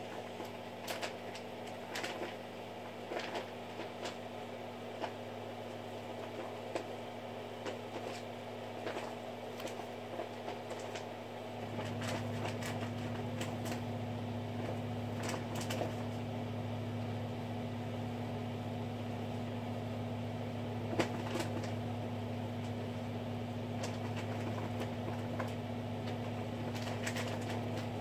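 A steady low electrical hum with scattered faint clicks; the hum gets louder about twelve seconds in.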